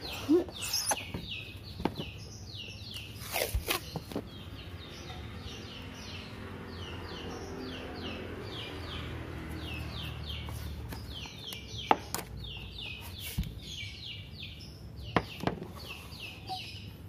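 Hands working masking tape on a car roof: a few sharp taps and clicks as the tape is handled and pressed down. Behind them runs a steady, rapid chirping of about three to four short calls a second, and a low rumble swells and fades in the middle.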